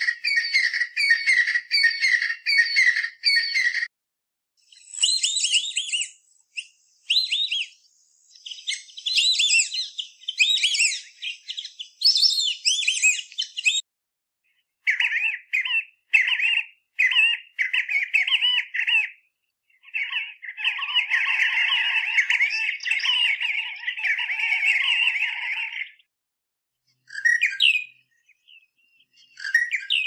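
Recordings of Southern African bird calls played one after another with short silences between them. First comes an evenly repeated high call, then a varied run of high chirping notes, then a dense, fast chattering, and a new call begins near the end.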